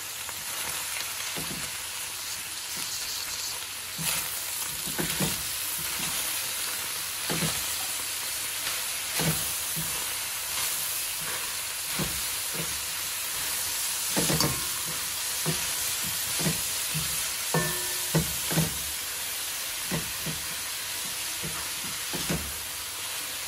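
Beef with onion, carrot and peas sizzling as it fries in a wide aluminium pot, stirred with a silicone spatula that knocks and scrapes against the pot at irregular moments over a steady hiss.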